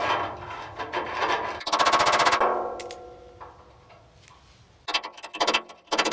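A hand tool rasping rust and dross out of a steel chassis spring-bush hole in repeated strokes. About two seconds in, a quick metallic clatter leaves a short ringing that fades. Near the end the rasping strokes start again.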